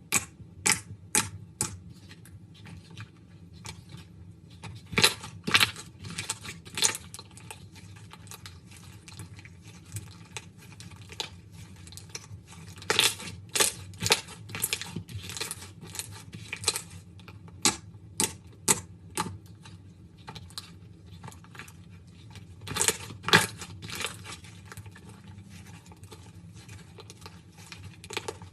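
Slime being played with, giving irregular sharp pops and crackles, some in quick clusters and others spaced out.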